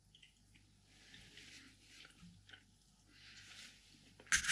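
Quiet chewing of a mouthful of haggis, then near the end a loud clatter of a metal fork on a plate.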